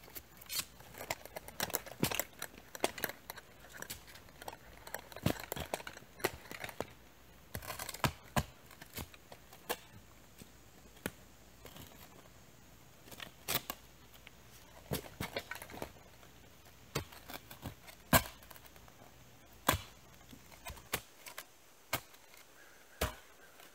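Shovel blade digging into soil by hand: a quick run of short, sharp scrapes and hits, then fewer, louder single strikes a second or two apart, easing off near the end.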